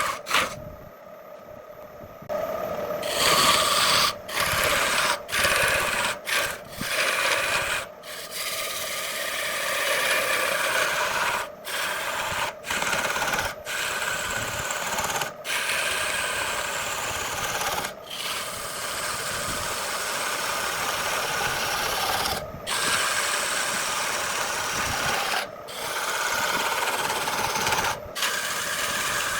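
Tools scraping and rasping on wood, in a run of short clips cut abruptly one after another.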